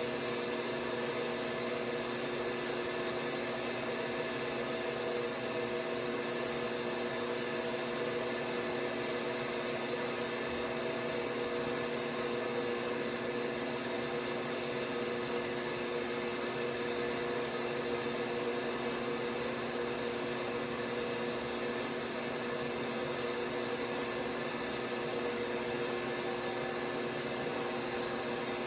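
LG WT5680HVA top-load washer with a direct-drive motor running, giving a steady hum made of several even tones over a soft rush, with no change in speed or rhythm.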